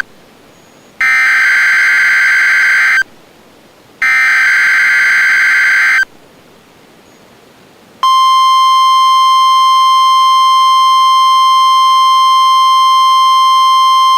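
NOAA Weather Radio EAS alert opening: two roughly two-second bursts of SAME header data, a warbling digital screech a second apart. After a two-second pause, the steady 1050 Hz weather radio warning alarm tone begins about eight seconds in, signalling that an urgent weather message follows.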